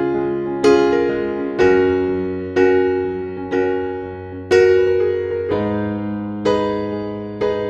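Background music: slow electric-piano chords, struck about once a second, each fading away before the next.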